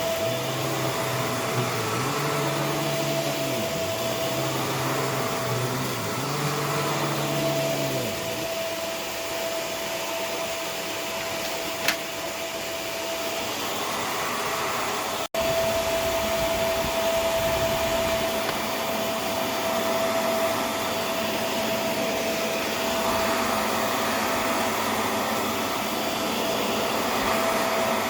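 Vacuum cleaner running steadily with a constant high whine; in the first several seconds its low hum dips and recovers a few times as the nozzle works over the surface. Its sound breaks off for an instant about halfway through, then carries on unchanged.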